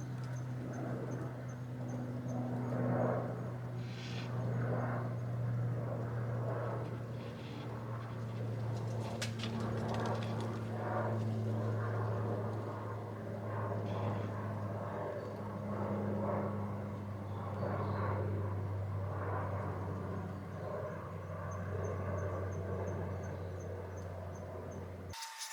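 Honda CB1100SF X-Eleven inline-four engine idling steadily, with irregular fainter higher sounds on top. The hum cuts off suddenly just before the end.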